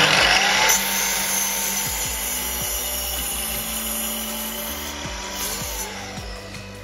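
Makita sliding mitre saw starting up and its blade cutting through treated softwood timber. The motor whine rises in pitch as it spins up, holds steady through the cut, then falls away as the saw winds down near the end.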